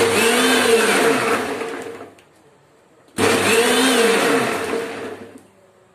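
Electric mixer grinder blending mango, milk and ice cubes, run in two short pulses rather than continuously. Each time the motor starts abruptly, runs for a second or two and winds down; the second run starts about halfway through.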